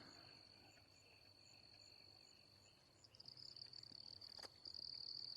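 Faint evening insect chorus: a steady high trill of crickets, with a higher insect call pulsing about twice a second. The trill grows louder about three seconds in.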